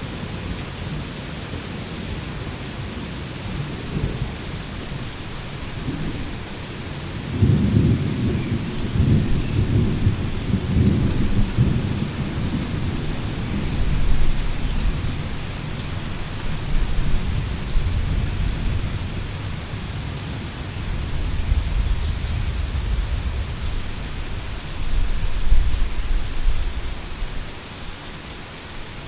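Heavy rain falling steadily in a thunderstorm, with rolling thunder rumbling in and out several times, loudest about a third of the way in.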